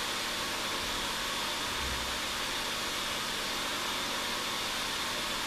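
Fluidizing bath running: its pump blowing air up through the plastic granules makes a steady whooshing hiss with a faint high whine.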